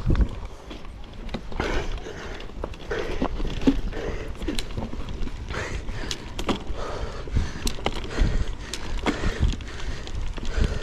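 A mountain bike riding down a dirt forest trail, heard from the bike: tyres rolling over dirt and leaf litter with a constant low rumble, and the bike rattling with many sharp knocks as it goes over bumps and roots.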